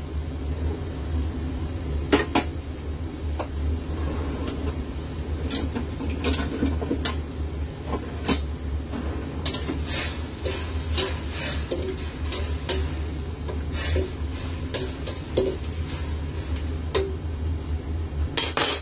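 A metal utensil clinking and scraping against a pot as shrimp and sweet corn are stirred while being boiled in water, with irregular sharp clinks over a steady low hum.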